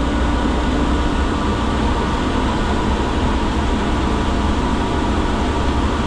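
Steady drone of running HVAC machinery: a constant low hum under an even hiss.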